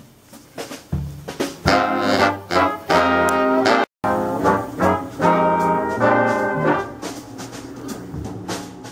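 Small brass band playing a tune, quieter for the first second and fuller after it, with a brief dropout just before four seconds in.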